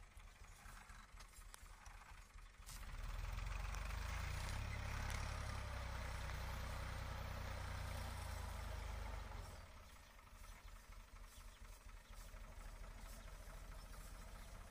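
Fiat 480 tractor's three-cylinder diesel engine running with a blade attached, a steady rapid chug. It grows louder about three seconds in, holds for several seconds, then drops back.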